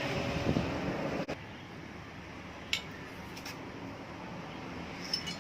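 Steady background hum with a few light clicks, then a sharp metallic clink that rings briefly near the end: metal tools or engine parts being handled.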